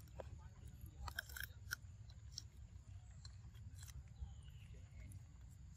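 A macaque biting and chewing fruit: scattered soft clicks and crunches, a few close together about a second in, over a faint low rumble.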